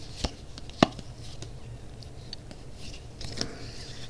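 Handling of a Pokémon trading-card booster pack and its cards: light rustling of the foil wrapper and cards, with two sharp clicks, about a quarter-second and just under a second in.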